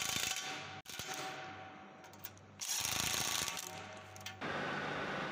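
Corded electric impact wrench running down flange nuts in two bursts: one right at the start lasting under a second, and a longer one of about a second and a half starting near three seconds in.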